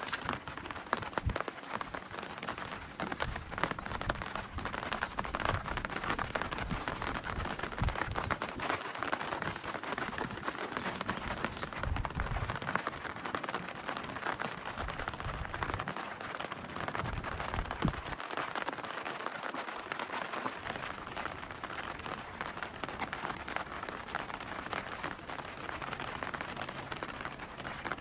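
Steady rain falling, with a dense patter of small drop ticks and occasional low rumbles.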